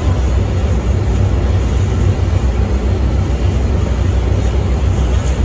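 Steady low rumble of an airport apron shuttle bus, heard from inside its cabin.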